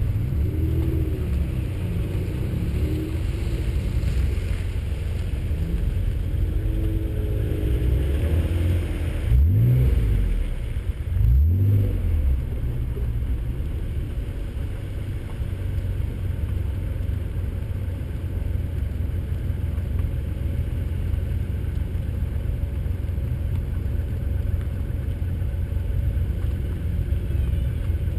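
Acura NSX's V6 engine running under steady road noise as the car drives, with two brief rises in engine pitch about ten seconds in and again two seconds later as it accelerates.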